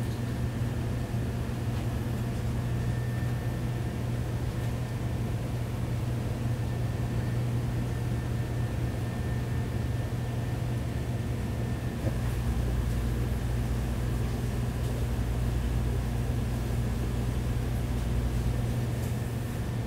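Steady low mechanical hum of kitchen machinery with a faint thin whine above it; a deeper rumble joins about twelve seconds in and drops away near the end.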